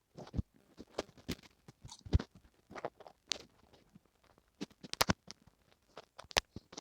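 Close handling noise of fingers working small pieces of newspaper and sticky tape into place inside a microphone: irregular clicks, taps and crinkles.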